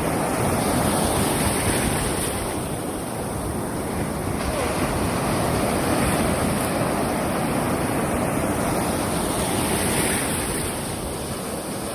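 Big surf breaking and washing up the beach: a steady rushing that swells and eases every few seconds, with wind on the microphone.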